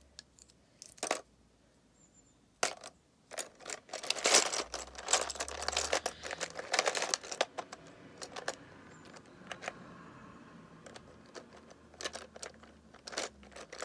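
Loose plastic Lego pieces clicking and rattling as a hand rummages through them in a plastic storage box. The clatter is busiest from about four to seven seconds in, with scattered single clicks before and after.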